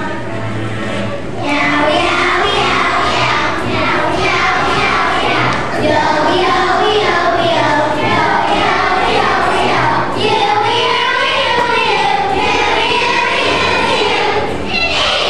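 A group of young children singing a song together in unison, with instrumental accompaniment.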